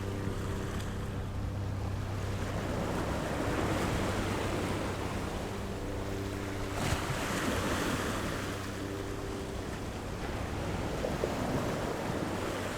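Ocean waves washing in and ebbing, the surf swelling and falling away, with a louder wave breaking about seven seconds in. A faint steady low hum runs underneath, fading in and out.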